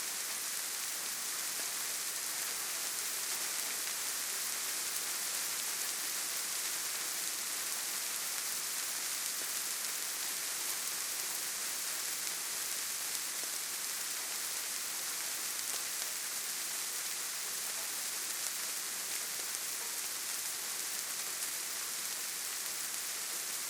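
Steady gentle rain, a soft even hiss of drops with faint fine patter.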